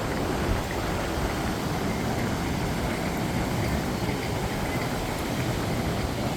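Steady rumbling wind noise on the microphone, with ocean surf blended in.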